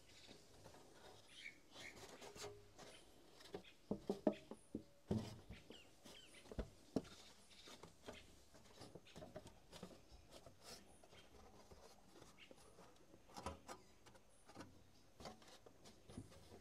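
Scattered light taps, knocks and rustles of a thin sheet-metal spout being handled and fitted against a wooden post, with a few sharper knocks between about four and seven seconds in and again near the end.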